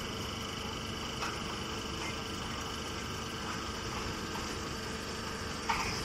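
Straw baling machinery running with a steady hum, with a few short knocks, the loudest near the end.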